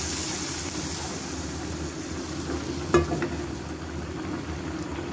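A hot tempering of fried onion, garlic and dried red chillies in oil is poured into a pan of simmering dal and pumpkin greens. It sizzles, strongest at first and fading, over the steady bubbling of the curry. A single sharp knock comes about three seconds in.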